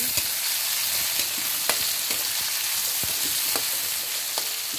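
Sliced onion, tomato and garlic sizzling in hot oil in a metal pan while a utensil stirs them, with several sharp knocks of the utensil against the pan.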